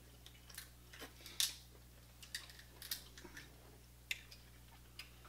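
Seafood boil being eaten: a scattered series of short, sharp clicks and crunches of biting and chewing, about seven in all, the loudest about a second and a half in.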